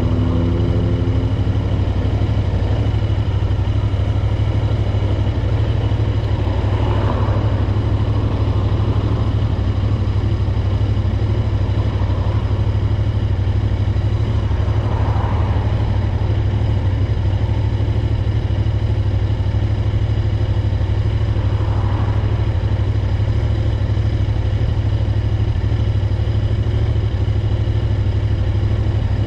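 Royal Enfield Interceptor 650's parallel-twin engine running at a steady engine speed, a strong, even low exhaust note.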